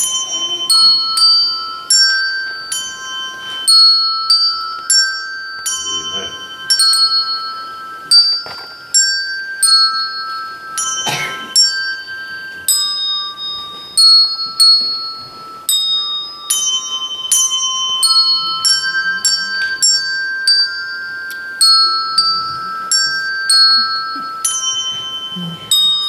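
Small coloured handbells rung one note at a time by a group of children, picking out a simple melody; each note is struck clearly and rings on briefly, sometimes overlapping the next.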